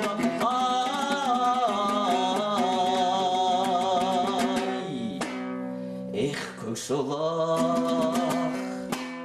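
Folk song: a singer holding long wavering notes over a plucked string accompaniment, with a brief break about five seconds in before the voice comes back.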